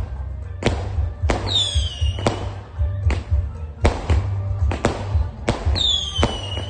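A 100-shot fireworks cake firing shell after shell, with a sharp bang a little more than once a second as each shell bursts.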